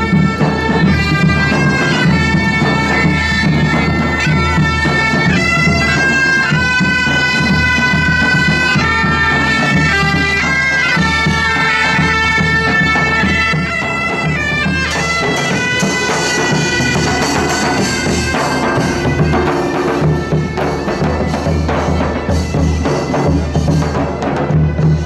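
Medieval-style bagpipes playing a melody over a steady low drone, with a drum beneath. About fifteen seconds in, the pipe melody fades and drum strokes and general noise take over.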